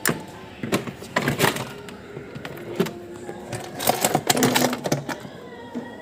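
A refrigerator's plastic freezer evaporator cover panel being handled: irregular sharp knocks, clatter and rustling, with clusters about a second in and again around four to five seconds in.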